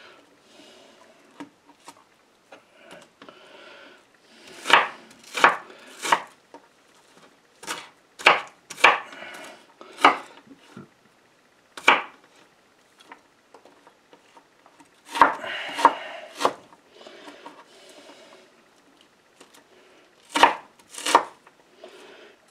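Kitchen knife dicing a red onion on a wooden cutting board: sharp knocks of the blade on the board, coming irregularly in short runs of one to four strokes with quieter pauses between.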